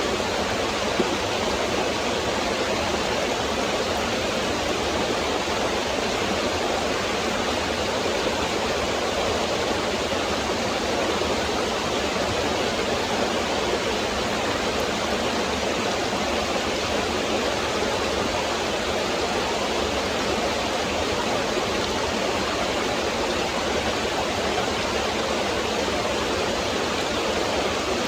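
Woodland stream rushing over rocks: a steady, unbroken sound of flowing water.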